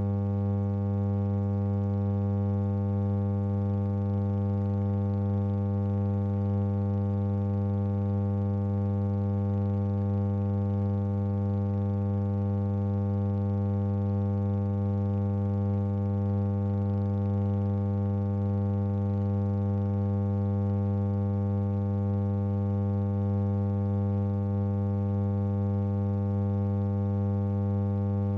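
Steady electrical hum, a low buzz with a stack of evenly spaced overtones and no other sound: the track carries no recorded sound from the film itself.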